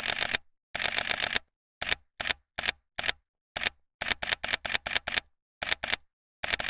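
Camera shutters firing in rapid bursts of sharp clicks, several per second, broken by short pauses and a few single clicks, like photographers shooting at a press conference.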